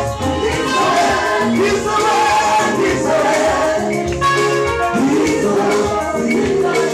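A gospel praise group singing into microphones, with musical accompaniment.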